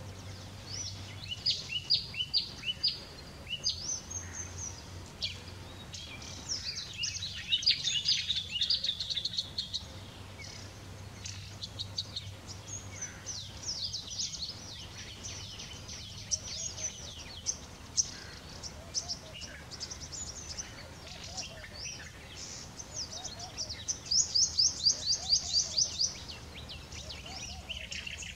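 Small songbirds calling in several bouts of quick, high, downward-slurred notes, each bout a second or two long; the loudest, most rapid series comes near the end.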